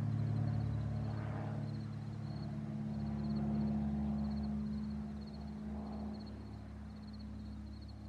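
Cessna 182 Skylane's single piston engine and propeller droning steadily as the plane flies away, fading slowly.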